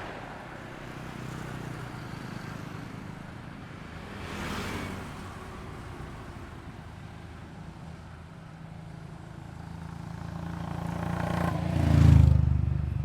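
Highway traffic passing close by: a steady engine hum with vehicles swishing past at the start and about four seconds in. Near the end a louder vehicle builds up and passes with a heavy, low engine sound, the loudest moment.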